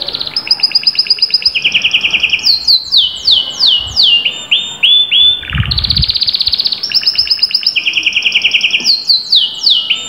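Canary singing a long, loud song: rapid trills of quickly repeated notes alternate with runs of fast falling notes, with a lower rolling phrase near the middle.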